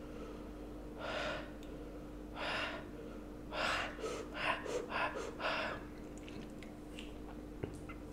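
A man blowing out hard breaths through pursed lips against the burn of a super-hot chili chip: three spaced exhalations, then a quicker run of about four.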